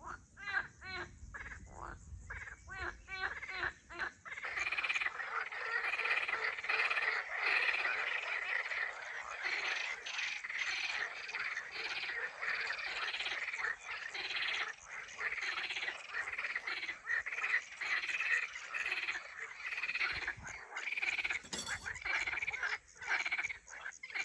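Frogs croaking at a pond's edge: first a quick run of separate calls, then from about four seconds in a dense, continuous chorus.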